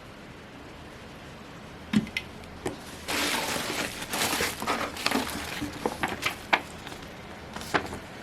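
Packaging being handled during an unboxing: a few sharp clicks, then a couple of seconds of dense rustling with more clicks scattered through it.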